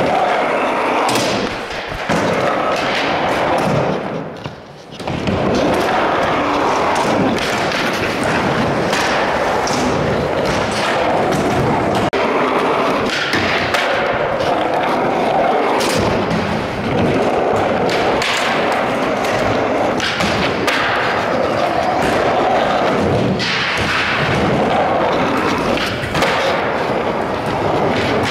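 Skateboard rolling, its wheels rumbling steadily and the board giving repeated thuds and clacks as it rides and lands, heard close to the board. It goes briefly quieter about four seconds in.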